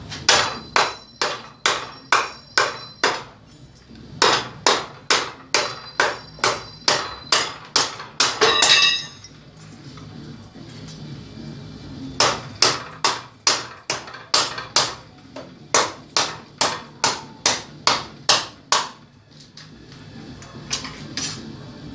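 Hand-forged ring-pommel sword with a 5160 steel blade chopping repeatedly into a wooden block in an impact test: sharp blows about two a second in runs, broken by a pause of a few seconds near the middle. Some strikes leave the blade ringing briefly.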